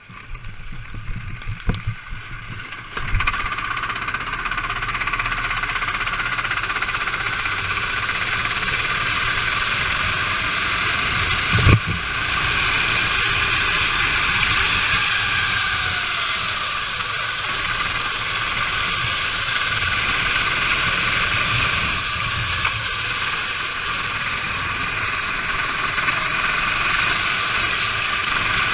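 Go-kart engine heard through an onboard camera: scattered knocks for the first few seconds, then the engine starts about three seconds in and runs steadily at racing speed. A single sharp knock sounds near the middle.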